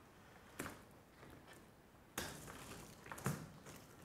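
Roast ducks being set down one at a time on aluminium foil: three short, faint knocks with foil crinkling, about a second apart.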